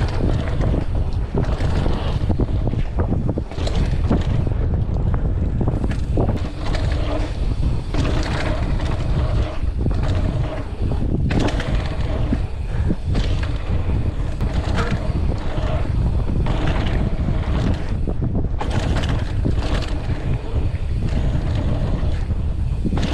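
Mountain bike riding fast down a dirt trail, recorded on the rider's GoPro: a steady rush of wind over the microphone and tyre roar, broken by frequent rattles and knocks as the bike runs over bumps. The tyres are pumped hard to about 30 psi, which makes the ride rough.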